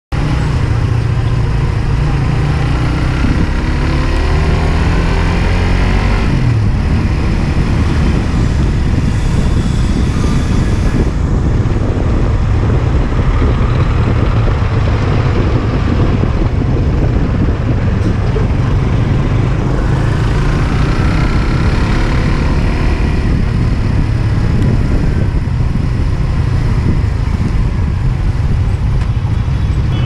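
Suzuki GSX-R150 sport bike's single-cylinder engine running as the bike rides through city traffic, with the noise of surrounding traffic. The engine pitch climbs and falls a few seconds in and again around twenty seconds in.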